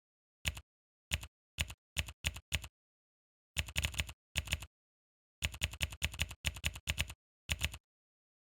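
Keyboard typing: short bursts of rapid key clicks with complete silence between them, stopping a little before the end.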